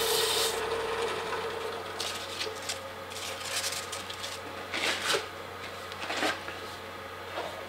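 400-grit sandpaper rubbing a small wooden spoon handle as it spins on a wood lathe, stopping about half a second in. The lathe then keeps running with a steady hum, with a few brief rustles.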